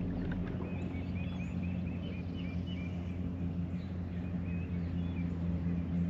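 A steady low motor hum, with a small bird chirping a quick run of short notes through the first half and a few more later.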